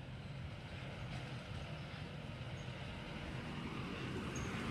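Low rumble of a vehicle, steady and growing gradually louder.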